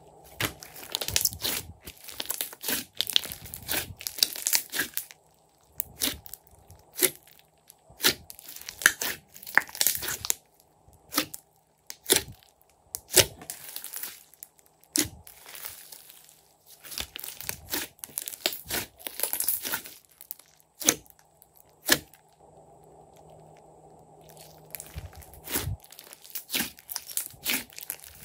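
Hands stretching, folding and pressing a large mass of glossy glitter slime: sticky squelches with sharp, irregular pops and clicks as trapped air pockets burst. The sounds stop for a couple of seconds near the end, then start again.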